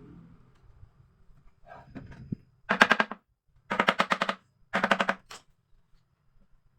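Power screwdriver, most like a cordless impact driver, driving screws into wood in three short rattling bursts about a second apart, the kind of work done when fixing drawer rails.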